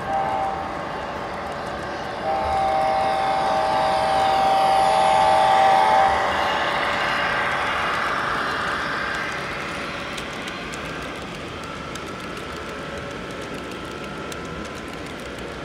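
HO-scale EMD SD60E and SD70ACe locomotives with ESU LokSound Select sound decoders passing at the head of a tank-car train. Their horn sounds a steady chord from about two seconds in until about six seconds, over the decoders' diesel engine sound and the running of the model cars on the track.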